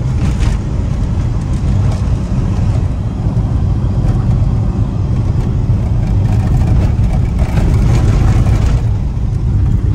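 A car on the move: a steady low rumble of engine and road noise, with a louder rush of noise briefly near the end.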